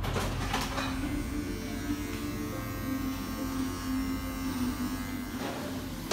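Electric beard trimmer running with a steady buzz as it is worked through a beard.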